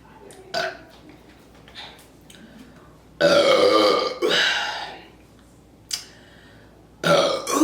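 Loud, deliberate human burps: a long burp about three seconds in that runs straight into a second, shorter one, then another starting near the end.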